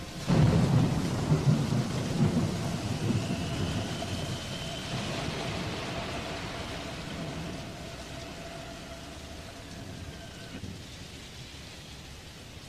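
Recorded thunder and steady rain on the music soundtrack: a thunderclap about half a second in rolls on for several seconds over hissing rain, with a few faint held keyboard notes, and the whole thing fades out gradually.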